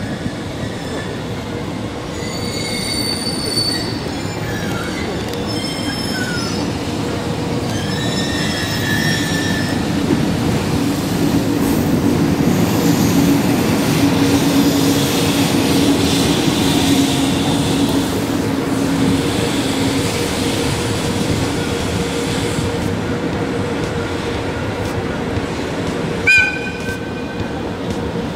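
EH500 electric freight locomotive rolling slowly over yard points, its wheels squealing on the curves, with a steady low hum that swells midway. A brief, loud, high-pitched sound comes near the end.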